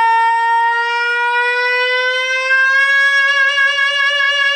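A male tenor voice singing a cappella, holding one long high note at the end of a hymn line. The note slides up about a step between one and three seconds in, then is held with a slight vibrato.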